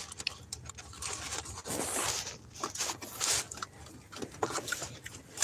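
Thin Bible pages rustling and crinkling as they are handled and turned, in irregular short rustles and small clicks, the loudest about two and three seconds in.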